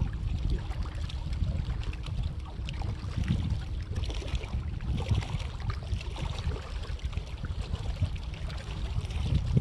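Wind rumbling and buffeting on the microphone outdoors, with faint water sounds and small ticks and knocks.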